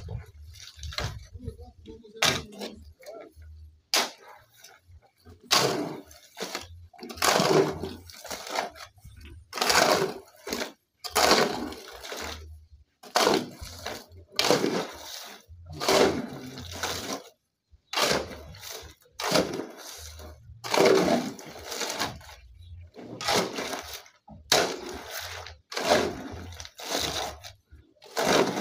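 A shovel scraping and turning a concrete mix of cement, sand and gravel by hand on bare ground, in repeated strokes about once a second, starting a few seconds in.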